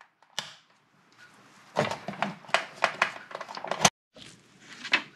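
A power strip's rocker switch clicks once, followed by a run of sharp clicks and knocks of hands handling the equipment. The loudest knock comes near four seconds in, and a few lighter clicks follow.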